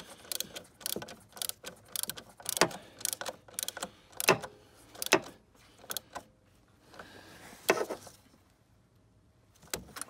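Hand ratchet with an extension tightening the throttle body's mounting bolts, clicking in quick irregular runs for about five seconds, then only a few single clicks and knocks of the tool.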